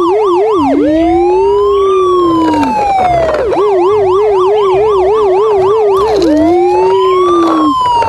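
Toy police car's electronic siren, loud and continuous, switching between a fast warble and a slow rising-then-falling wail, twice over.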